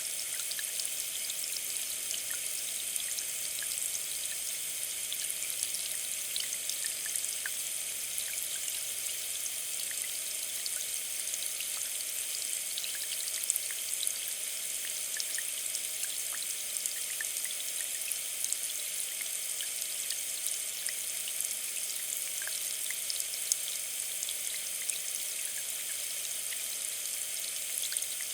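Water hissing and spitting from a leak in a hose: a steady high spray with a constant crackle of tiny droplet clicks and an occasional louder pop.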